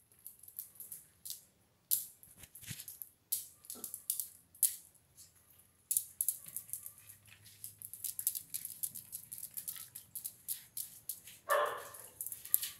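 A run of sharp, irregular clicks and crackles, then one short bark from a miniature pinscher near the end.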